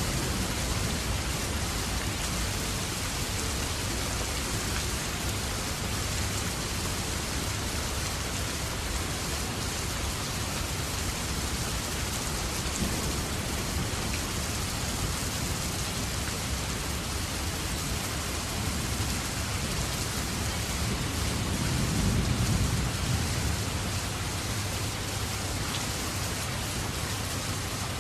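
Steady rain falling hard, with a low rumble of thunder swelling briefly about three-quarters of the way through.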